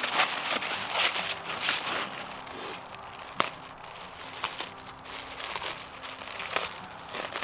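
Aluminium foil wrapping and plastic packaging crinkling and crackling in the hands as a present is unwrapped, with one sharp crackle about three and a half seconds in.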